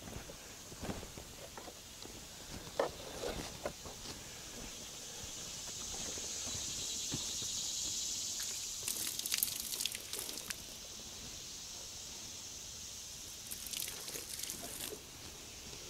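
Footsteps and handling knocks, then water poured from a plastic jug splashing onto freshly sawn hardwood boards in two short spells, about nine and fourteen seconds in.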